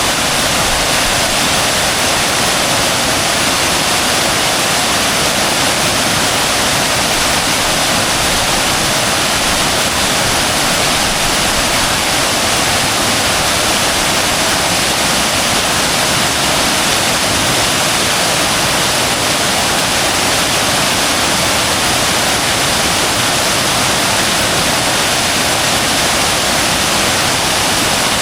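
Large waterfall in monsoon flow, a loud, steady rush of falling water.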